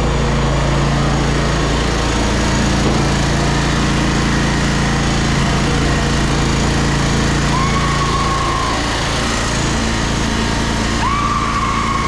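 An engine running steadily. Near the end come two flat, high-pitched tones, each lasting about a second.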